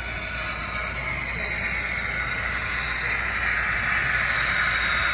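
Model freight train running along the track behind three diesel locomotives, a steady running noise that grows louder as the locomotives come closer.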